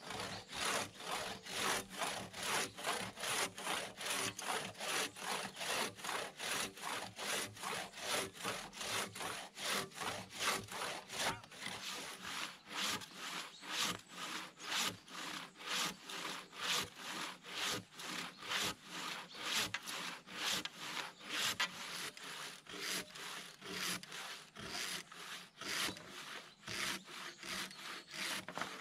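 Long coarse-toothed handsaw crosscutting a peeled log by hand, its teeth rasping through the wood in steady back-and-forth strokes, about two a second.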